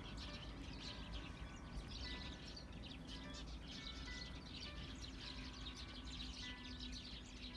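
Many small birds chirping and twittering continuously, with short whistled notes, over a low steady rumble.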